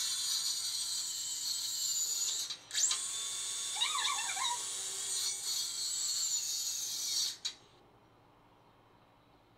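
Circular saw running and cutting through a wooden board with a high, steady whine. It stops briefly about two and a half seconds in, starts again, and cuts off sharply about two seconds before the end.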